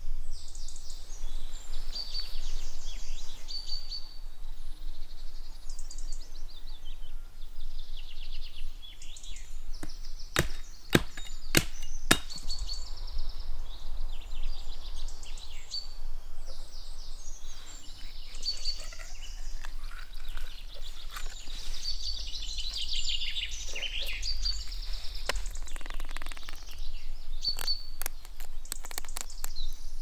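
Small birds chirping and singing outdoors, with a few sharp knocks about a third of the way in and a quick run of clicks near the end.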